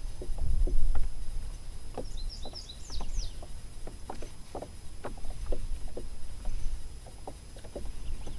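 Wind rumbling on the microphone, with small waves knocking against the boat's hull in irregular soft taps. A songbird chirps a quick run of calls about two seconds in.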